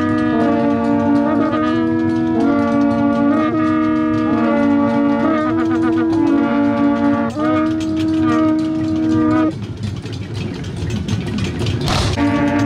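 An ensemble of Akan side-blown horns sounds held, overlapping notes in short phrases that step between a few pitches. The horns cut off about nine and a half seconds in, leaving background noise.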